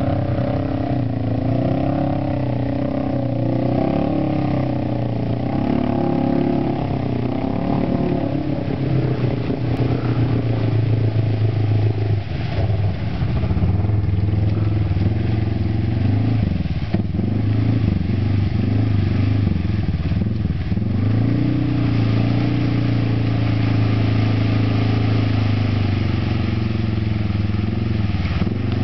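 Arctic Cat ATV engine running while the quad is stuck in deep mud, its pitch rising and falling as it is revved, with the most uneven revving a little past halfway.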